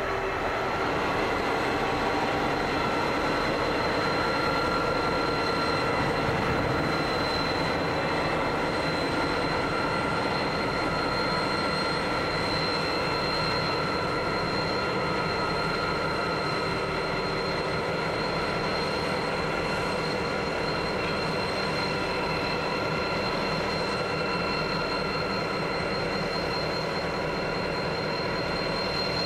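Pacific National 81 class and BL class diesel-electric locomotives, both with EMD two-stroke engines, running at low power as they move slowly along the track. A steady engine rumble sits under continuous high-pitched whines.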